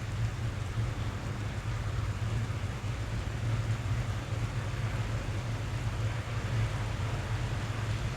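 Rain pattering steadily on a car's roof and glass, heard from inside the cabin: a dense, even patter with a deep low rumble beneath it.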